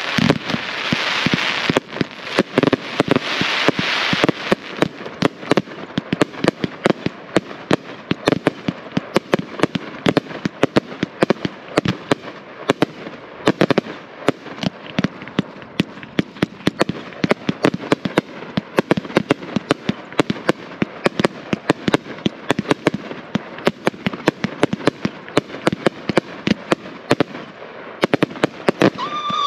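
A consumer 1.4G firework cake firing: a rapid, continuous string of shots and aerial bursts, several a second, with a dense hiss over the first four seconds.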